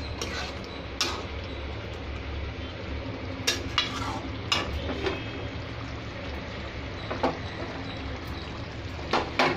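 Flat metal spatula stirring and scraping a thick curry in a steel kadai, with several sharp knocks against the pot, over the steady sizzle of the gravy simmering on low heat as it thickens.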